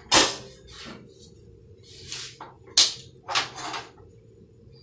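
Sharp clicks and knocks at a gas stove as a long utility lighter is worked to light a burner for frying. There is one short rush of noise a little past the middle.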